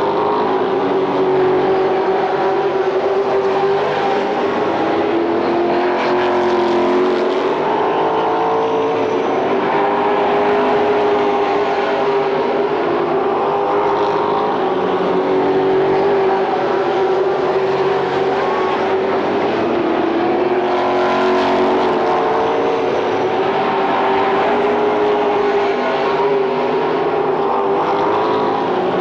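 Late model stock cars' V8 engines running around the oval as a pack, their pitch rising and falling as they go down the straights and through the turns.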